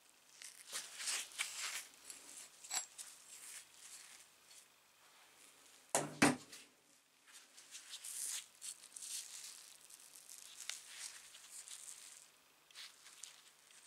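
Handling of an old cast-metal hand drill and its parts: rustling of gloved hands with small clicks and taps. About six seconds in come two sharp knocks in quick succession as the drill is set down on the wooden workbench.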